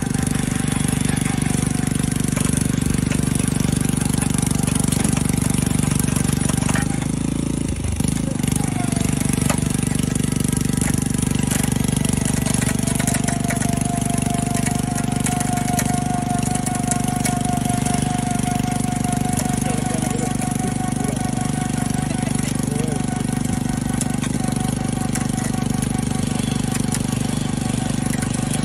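Homemade water-well drilling rig running: a loud, steady mechanical drone from its motor drive. The sound shifts briefly about seven to eight seconds in, and a thin higher whine joins about nine seconds in and fades after about twenty seconds.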